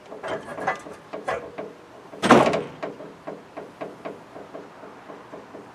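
Cylinder head of a Land Rover 2.5 litre naturally aspirated diesel being lifted off the block: a run of metal knocks and clanks, then one loud heavy thud about two seconds in as the head is set down, followed by a few lighter knocks.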